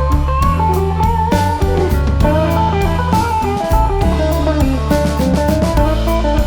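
Background music: an electric guitar playing a melody over bass guitar and a drum kit with a steady beat.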